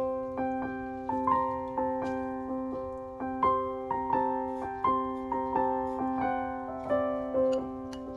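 Background music: a slow melody of single struck notes, each ringing and fading, about one to two a second, over steadily held lower notes.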